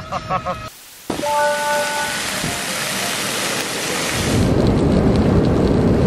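Pork belly slices sizzling in a frying pan: a dense, even hiss that grows louder and fuller about four seconds in.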